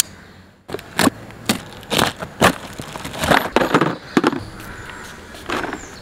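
Packing tape being sliced with a knife and ripped off a cardboard parcel, the cardboard flaps crackling as they are pulled: a quick series of sharp rips and crackles.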